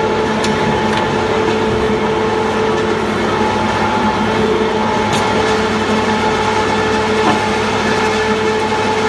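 FPE FG300 frozen block grinder running: a loud, steady machine hum with a few faint sharp ticks.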